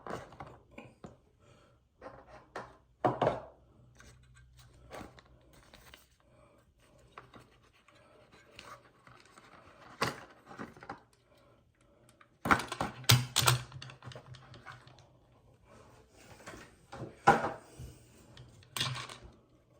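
Packaging being handled and opened to take out a model train tank car: irregular scrapes, rubbing and small clicks and knocks, with quicker clusters of louder clicks about two-thirds of the way through and again near the end. A faint low hum comes and goes underneath.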